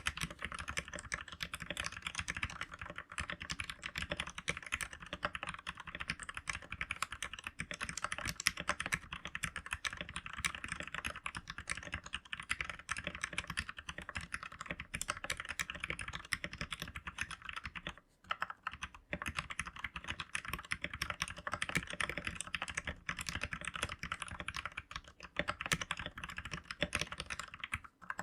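Fast, continuous typing on an RK71 wireless mechanical keyboard, a dense stream of key clicks with a brief pause about 18 seconds in.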